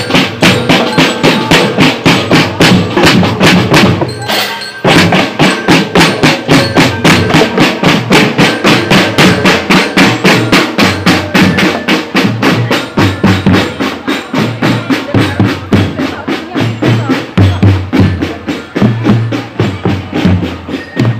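Marching drum band playing a fast, steady beat on snare drums, multi-tom tenor drums, bass drums and hand cymbals, about four strokes a second, with a short break about four seconds in.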